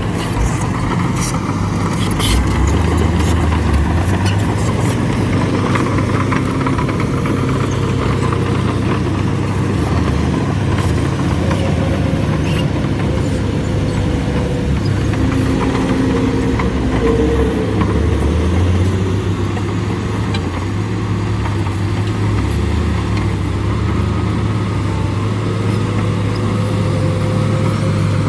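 Heavy diesel engine of a Shantui DH17 crawler bulldozer running steadily, with scattered metallic clanks in the first few seconds.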